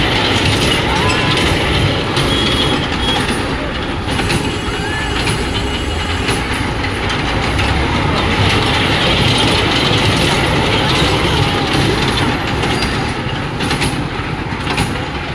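Kiddie ride train rolling round its circular steel track, the wheels rumbling and clattering steadily on the rails.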